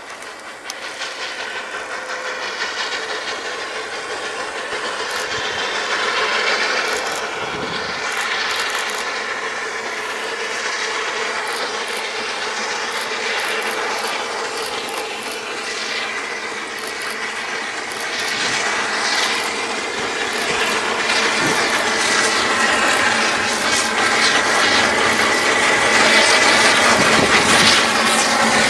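Cripple Creek & Victor narrow-gauge steam locomotive No. 2 approaching with its coaches, growing steadily louder. A wavering steady tone runs over the train noise.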